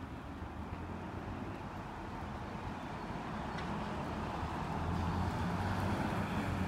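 City street ambience: a steady hum of traffic on wet roads, growing louder in the second half.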